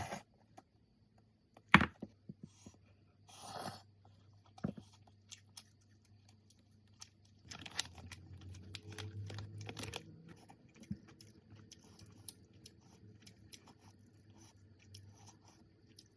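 Food handling and eating sounds: a sharp knock about two seconds in, a tearing rustle, and scattered clicks and crunches, over a low steady hum.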